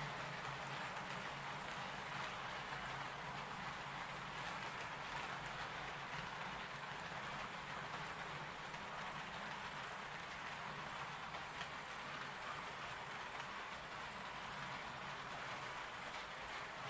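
Roco HO-scale model electric locomotive hauling passenger coaches around the track, giving a steady running noise from its motor and its wheels on the rails.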